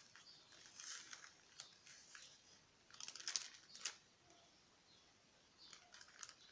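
Faint, scattered scrapes and rustles of a spoon scooping dry plaster powder and tipping it into the mixing bowl, with a few sharper scrapes about three to four seconds in.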